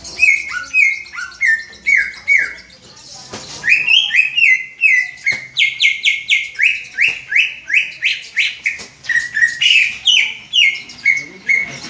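Green leafbird (cucak ijo) singing a fast run of short slurred whistled notes, about two to three a second, with a brief pause about three seconds in.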